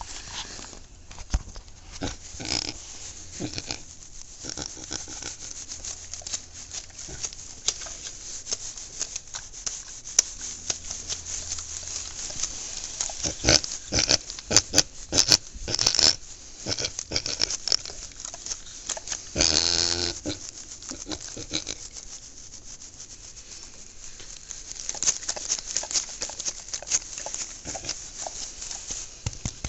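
Pig lying in straw giving low grunts, among close rustling of straw and hands rubbing its coat; one longer, louder grunt about two-thirds of the way through.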